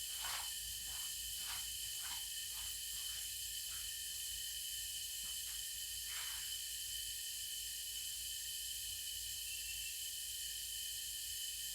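Steady faint hiss of compressed air flowing through a cylinder leak-down tester into a cylinder that is leaking more than 50%.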